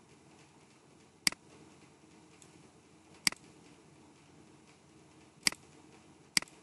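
Computer mouse button clicking four times, a second or two apart, each click a quick press-and-release double tick.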